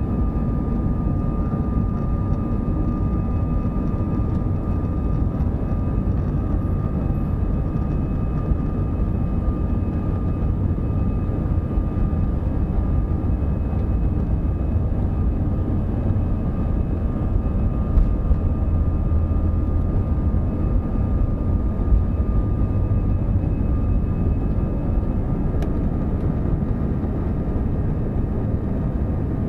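Cabin noise of an Airbus A320 on its takeoff roll and climb-out: a steady, loud, deep rumble of the engines and airframe with a steady high whine over it. A few brief knocks come through about two-thirds of the way in.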